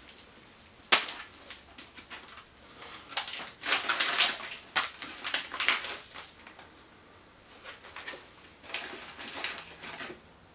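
Tan plastic MRE component pouch being torn open and handled: a sharp snap about a second in, then irregular bursts of crinkling and crackling packaging.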